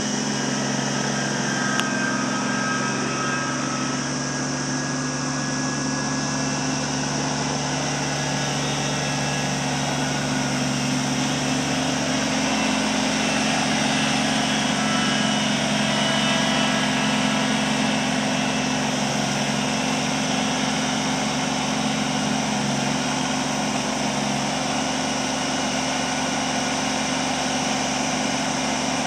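Kubota BX25 compact tractor's three-cylinder diesel engine running steadily as the tractor-loader-backhoe is driven, its note shifting slightly about twelve seconds in.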